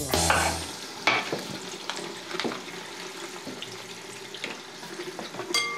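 Kitchen tap running steadily into a steel sink, a continuous hiss of water, with a few light clicks and knocks of utensils and food being handled and a brief ringing clink near the end. A music sting fades out in the first second.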